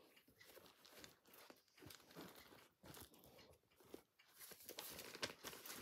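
Faint rustling and crinkling with scattered small clicks and ticks, as of things being handled and set down.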